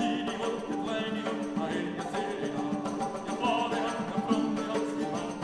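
Music: a melody over a long held low note.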